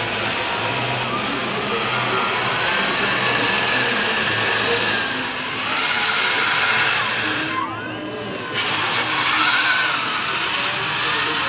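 Radio-controlled scale wheel loader driving close by, the whine of its electric motors rising and falling in pitch over a steady motor hum.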